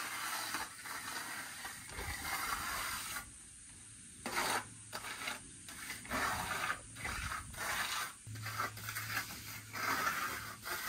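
Steel plastering trowel scraping and smoothing wet cement render on a block wall in repeated strokes, with a short pause about three seconds in.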